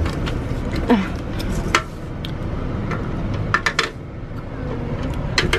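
Sharp metallic clinks and knocks of a tool working at a car's rear wheel hub: a few scattered strikes, a quick cluster about midway and another pair near the end, over a low steady rumble.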